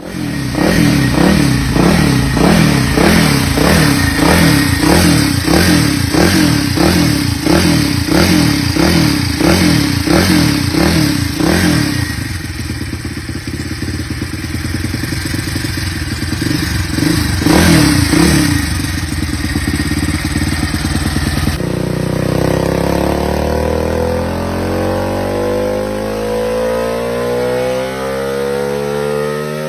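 Single-cylinder Honda Supra 125 four-stroke fitted with a Kitaco racing DOHC head, revved in quick regular blips at first, then running steadier with one more rev. Near the end its note climbs steadily.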